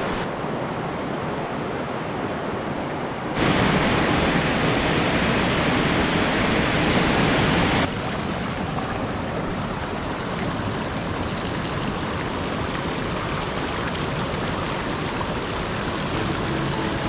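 Mountain stream water rushing steadily. From about three and a half seconds to about eight seconds the rush is suddenly louder and brighter, then drops back just as abruptly.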